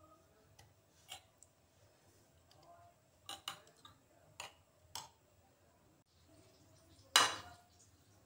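Scattered faint clicks and taps of a metal spoon against a glass jar while masala paste is scooped out, with one louder knock a little before the end.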